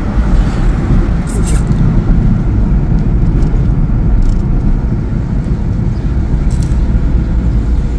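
Steady low rumble of a car on the move, heard from inside the cabin: engine, tyre and road noise, with a few brief faint clicks.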